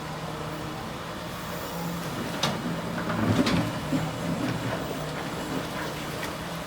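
Excavator engine running steadily, with a few sharp knocks or clanks around the middle.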